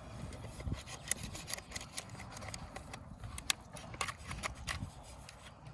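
Plastic seat belt buckle being worked by hand while its grime is cleaned out: a string of irregular sharp clicks and rubbing.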